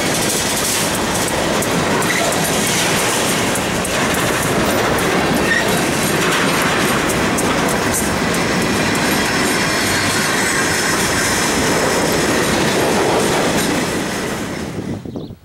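Empty covered grain hopper cars rolling past close by: a steady rumble and clatter of steel wheels over the rails. It fades away near the end.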